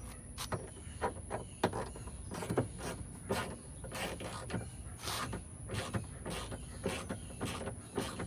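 Hand ratchet clicking in a steady rhythm, about two clicks a second, as a tailgate handle mounting bolt is run in; the bolt is turning a little tight, which is taken for cross-threading.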